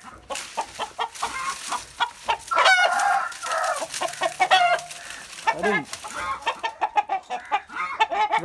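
Chickens clucking and squawking in quick short calls, with a rooster crowing.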